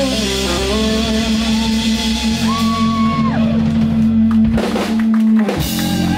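Live rock trio of electric guitar, bass guitar and drum kit holding out a long chord as the song winds to its end. A guitar note slides up and falls away about three seconds in, and a few drum hits come near the end.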